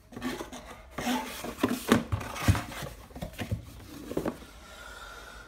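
Scattered knocks, clicks and rubbing of objects being handled off camera on a tabletop, busiest in the first few seconds and then quieter.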